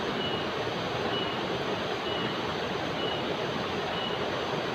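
River water rushing steadily over rocks in shallow rapids, with a jenggeret insect's faint, short high chirp repeating about once a second.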